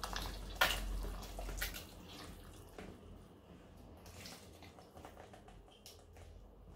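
Ketchup squeezed from a plastic squeeze bottle into a pot of soup: a few sharp squirts in the first two seconds, then faint sounds of a thin stream running into the broth.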